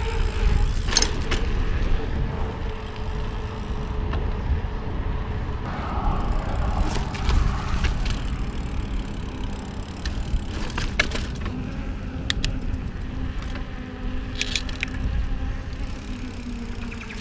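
Mountain bike being ridden on pavement: steady wind buffeting the handlebar microphone and tyre rumble, with scattered sharp clicks and rattles from the bike.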